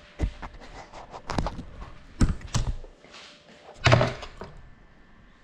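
A series of sharp knocks and thuds, the loudest about four seconds in, with quieter stretches between.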